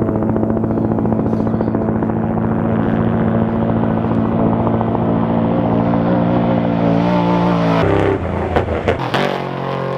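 Trophy truck engine running at a steady speed; about eight seconds in the note breaks off with a few sharp knocks, and a quieter, lower engine note carries on.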